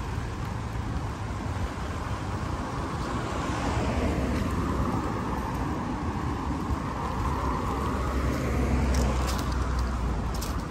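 Road traffic: cars driving past on the street, their tyre and engine noise swelling and fading twice.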